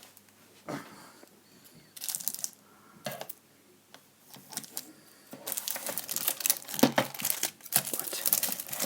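Packaging crinkling and rustling as it is handled and pulled open: a few short rustles, then steady crinkling from about halfway through.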